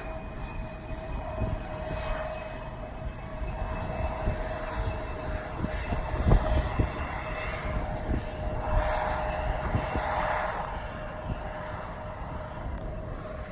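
Airplane engines running steadily, a continuous rumble with a steady whine over it; a higher whine fades out partway through. Wind buffets the microphone.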